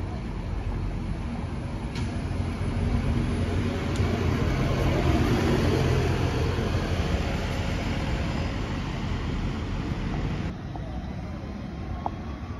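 London double-decker buses pulling away and driving past close by, engine and tyre noise swelling to its loudest about five to six seconds in as a New Routemaster turns past. About ten seconds in it drops suddenly to quieter traffic noise.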